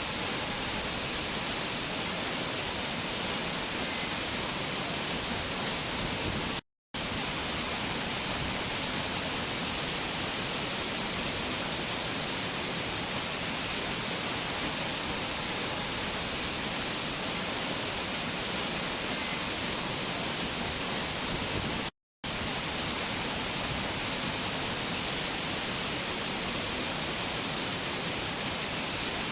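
Waterfall's steady rush of falling water, an even hiss with no change in pitch. It cuts out to silence for a split second twice, about seven seconds and twenty-two seconds in.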